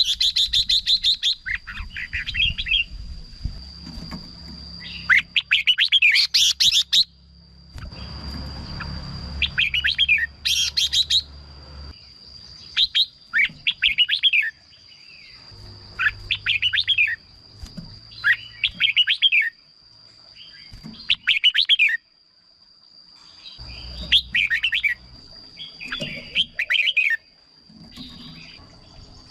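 Red-whiskered bulbuls singing short, quick whistled phrases again and again with brief pauses, mixed with a few harsh chattering bursts. A steady high-pitched tone runs behind the song most of the time.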